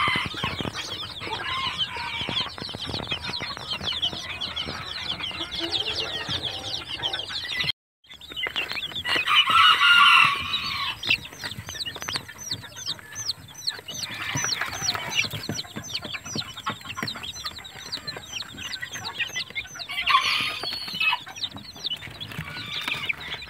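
A crowd of young chicks peeping, a dense chorus of short, high, falling peeps overlapping without a break. The sound drops out briefly about eight seconds in, and there are louder stretches around ten and twenty seconds in.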